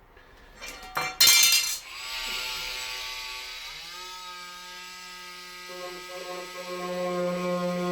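A couple of light clicks, then a loud, sharp metallic clatter about a second in. Background music follows, with sustained chord tones that step up in pitch midway and grow louder toward the end.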